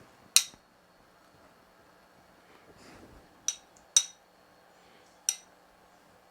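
A utensil clinking sharply against kitchenware four times while sausage is put on a pizza: once just after the start, twice close together a little past the middle, and once more near the end.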